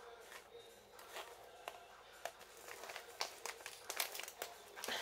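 Parcel packaging crinkling and rustling as it is unwrapped by hand, in scattered crackles that grow busier and louder in the second half.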